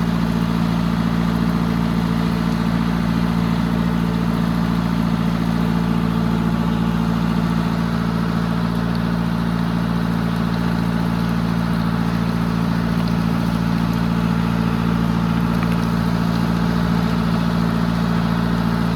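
Tractor engine running at a steady speed with a constant low hum.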